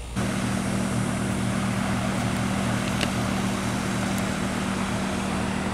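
A steady mechanical drone with an even hiss, holding level throughout, with a couple of faint ticks.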